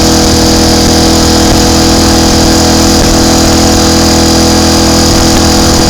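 Triumph Tiger Cub's single-cylinder four-stroke engine running at steady revs.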